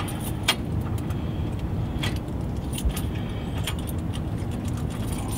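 A few short metallic clicks and clinks as a Master Lock hitch pin lock is fitted and snapped onto the end of a receiver hitch pin, over a steady low rumble.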